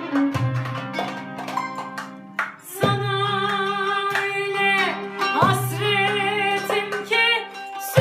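Song: a plucked string instrument plays a melody, and about three seconds in a voice comes in singing long, wavering notes over it.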